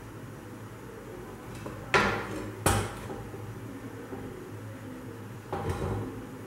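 Iron tawa clanking against the gas stove's metal pan support as it is held upside down over the flame and turned to roast the top of a naan: two sharp clanks about two seconds in, and a lighter rattle near the end.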